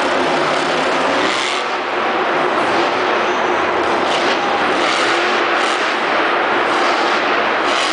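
Monster truck's supercharged V8 engine running at high throttle, loud and steady, revving up as the truck accelerates into a jump over a row of cars and a bus.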